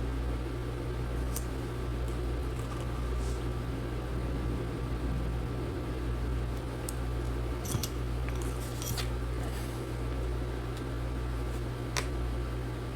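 Steady electrical hum with a few short clicks and scrapes, from plastic pry cards working under the glued battery cells of a laptop, with a cluster of them about eight to nine seconds in.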